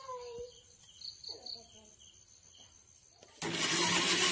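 Faint high chirping in the background, then about three seconds in an electric mixer grinder starts abruptly and runs loud and steady, grinding ripe jackfruit bulbs to a pulp.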